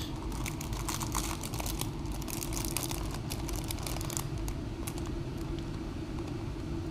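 Clear plastic bag crinkling and rustling in the hands as a bagged plastic model-kit sprue is lifted and handled, in a run of light irregular crackles and clicks. A steady low hum runs underneath.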